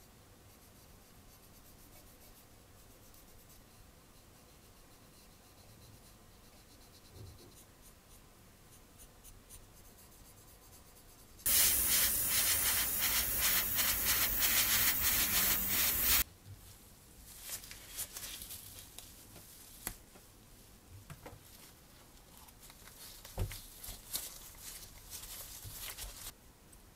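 Faint dry brushing as a small applicator rubs powder onto a plastic model seat. About eleven seconds in, a loud, steady spray hiss lasts about five seconds. Scattered soft crackling and rustling follow as gloved hands handle a small piece of fabric.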